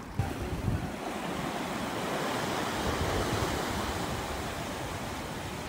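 Storm-driven sea waves surging and washing over broken wooden pier timbers, a steady rush of water that swells a little about two seconds in, with wind on the microphone. Two low thumps come just after the start.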